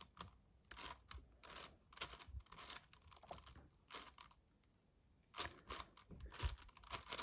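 Layers of a 7x7 magnetic cube being turned by hand: quick runs of short plastic clicks and scrapes, with a pause of about a second near the middle.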